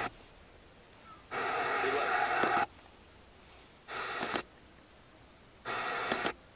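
AM radio scanning down the medium-wave band: three short snatches of thin, muffled station audio, each starting and stopping abruptly with a small click, with muted near-quiet between the stops.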